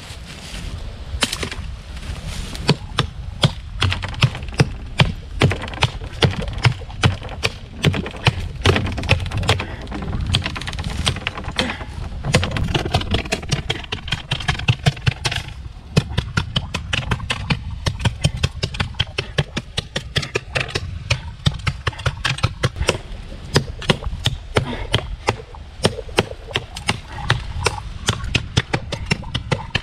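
ESEE Junglas large chopping knife striking a green wood branch again and again in quick succession, about two to three sharp chops a second, the footage played at double speed.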